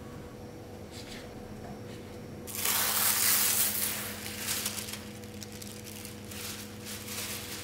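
Paper or plastic wrapping crinkling and rustling as a frozen puff pastry sheet is unwrapped. The crinkling starts a couple of seconds in and is loudest for about a second and a half, then goes on as lighter rustles. A couple of faint knife taps on a wooden board come before it.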